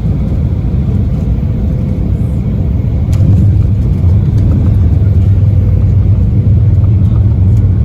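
Embraer 175 cabin noise during the landing roll: a loud, steady low rumble from the engines and wheels on the runway, growing louder about three seconds in.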